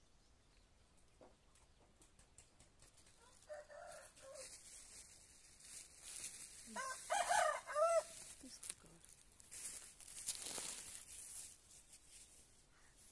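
A rooster crowing once, a cock-a-doodle-doo of arching notes about seven seconds in, after a shorter call about four seconds in, over a hiss that swells and fades.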